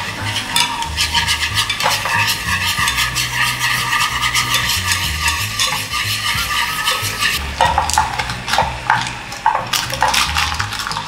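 Minced garlic and a dark sauce sizzling and crackling in melted butter in a pan as a spatula stirs it. In the last few seconds the crackles get louder and are mixed with knocks as fried chicken pieces go into the pan.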